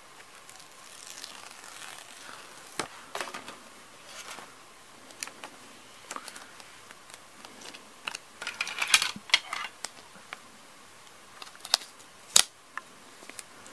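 A paper sticker sheet crinkling and rustling in the hands as a sticker is peeled from its backing, with scattered sharp clicks. It is busiest about eight to nine and a half seconds in.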